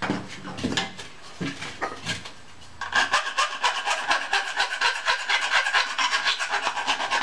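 Metal edge of a freshly cut feeding hole in an aluminium Swiss Volcano stove being deburred by hand. A few scattered scrapes give way, about three seconds in, to a fast, even run of rasping strokes, about six a second.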